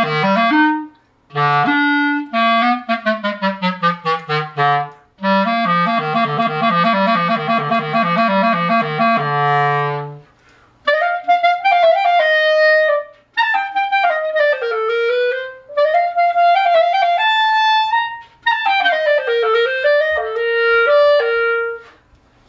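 A vintage Buffet clarinet, probably around a 1968 model, played solo. The first ten seconds are low-register notes with quick runs and a rapid back-and-forth between two low notes, then a melody higher up in phrases broken by short pauses.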